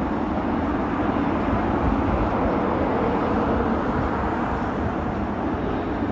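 Steady, even roar of airport ground noise, with the idle of a taxiing jet airliner blending into surrounding traffic noise and no distinct event.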